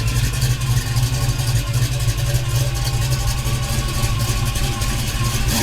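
Dodge Dart's engine idling loud and steady through its exhaust, with no revving; it cuts off abruptly at the end.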